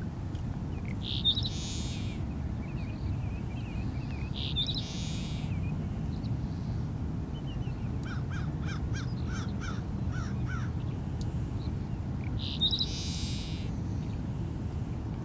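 Seaside sparrow singing three times, each song a short clear note or two followed by a harsh buzz lasting under a second. A run of quick chirps from another bird comes between the second and third songs, over a steady low rumble.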